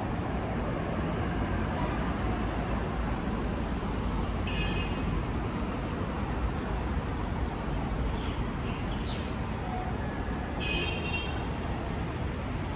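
Steady road traffic from cars and buses passing on a city street, a continuous low rumble. Two short, high chirps cut through it, about four and a half seconds in and again near the end.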